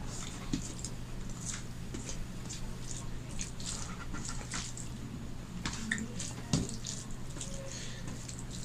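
Fingers squishing and mixing rice with dal and fish curry on a steel plate: irregular wet squelches and light clicks, one a little louder about six and a half seconds in, over a steady low hum.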